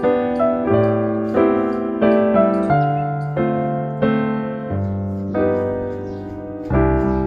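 Background piano music: a gentle tune of struck notes and chords, each fading away, with a new one about every half second.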